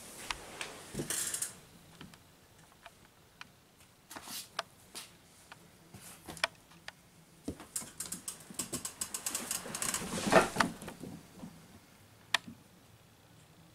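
Scattered light clicks and taps of kittens' paws and claws scrabbling on a hardwood floor as they play-fight. The taps come thicker towards the end, with a louder rustling scuffle about ten seconds in.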